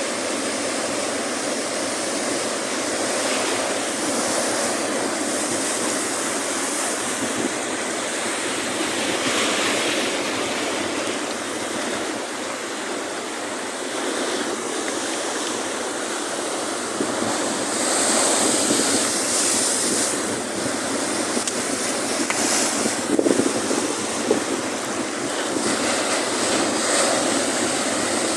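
Ocean surf breaking and washing over a rocky reef shelf: a continuous rushing wash with louder crashes of incoming waves now and then.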